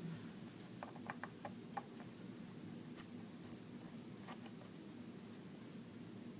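Small, scattered clicks and ticks as the tiny bottom-case screws of a MacBook Pro are unscrewed and handled, a quick cluster in the first two seconds and a few sharper ones around the middle, over a steady low hum.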